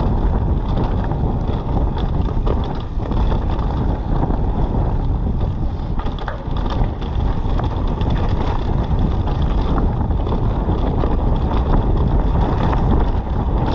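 Wind buffeting the microphone of a mountain bike's on-board camera during a fast descent, over the steady rumble of tyres on wet trail, with scattered knocks and rattles from the bike.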